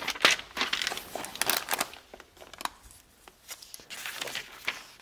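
Pages of a LEGO instruction booklet being turned and handled: a run of crisp papery rustles and flicks, busiest in the first two seconds, quieter in the middle, then a few more near the end.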